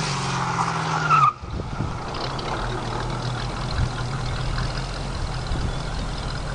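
1973 Chevrolet Camaro on the move, its engine running steadily over road noise. About a second in, the sound changes abruptly, and a steadier, noisier cruise with a low engine hum follows.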